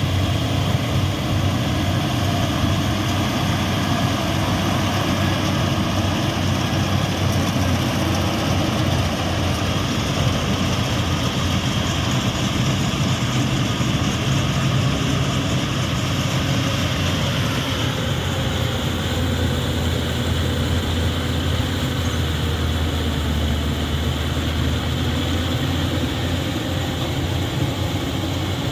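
Yanmar YH850 rice combine harvester running steadily, its diesel engine and harvesting machinery making a continuous loud, even hum with a strong low drone.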